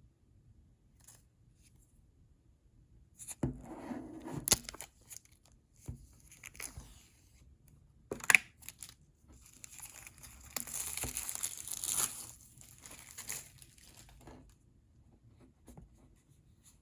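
Apple Pencil (2nd generation) packaging being opened by hand: scattered handling noises and a sharp click, then a few seconds of steady tearing and crinkling past the middle.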